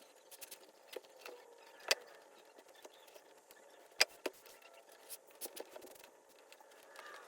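Hands working an old Sears 1628 leather baseball glove: scattered light clicks and taps over a faint rustle, the sharpest about two and four seconds in.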